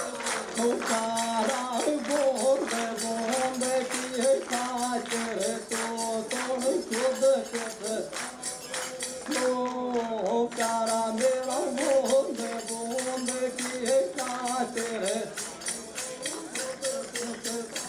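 Rajasthani folk song: a man sings a long-held, ornamented melody over a small hand-held tambourine shaken in a steady rhythm, its jingles ringing on every stroke.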